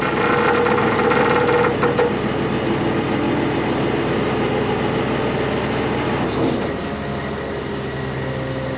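A large engine running steadily. About seven seconds in it drops a little in level and settles into a smoother, lower hum.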